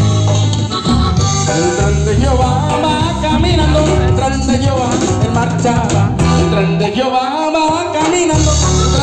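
Live praise band playing upbeat Latin-style Christian music, with bass and guitar over a steady beat; the bass drops out briefly near the end.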